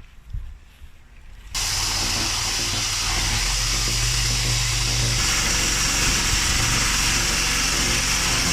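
An engine running steadily under a loud, even hiss, cutting in suddenly about a second and a half in.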